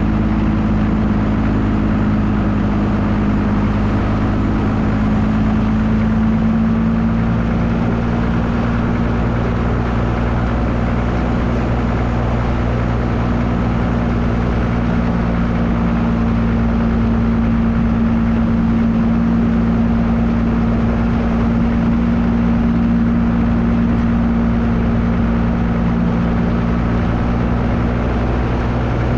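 Dodge Cummins diesel pickup running steadily while driving, with road and wind noise. The engine note shifts slightly in pitch about five seconds in.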